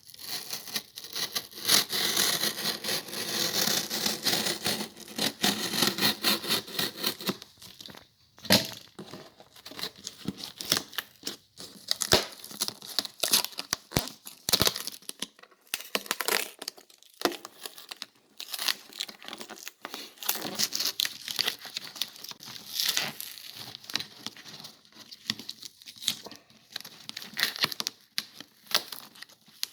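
Shipping packaging being torn and crinkled open by hand, one-handed. There is dense crackling for the first several seconds, then intermittent rustles and clicks.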